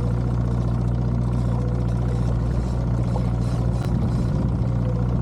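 Boat engine running steadily at trolling speed, a constant low hum, with a single short knock about four seconds in.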